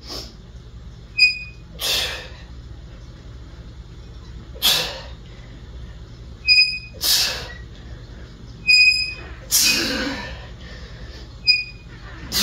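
A man's sharp, forceful breaths on each rep of heavy EZ-bar curls, about every two to three seconds, with a short high metallic clink between them.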